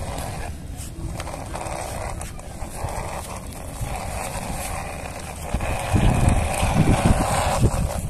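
Plastic wheels of a small toy truck rolling and crunching over dry, gravelly dirt. From about six seconds in there is a louder, uneven low rumble.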